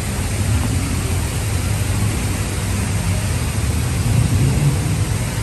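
Steady low rumbling outdoor noise with a hiss over it, even throughout, with no distinct events standing out.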